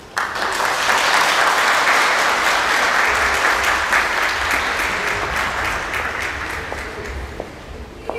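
Audience applauding, starting suddenly and slowly dying down near the end.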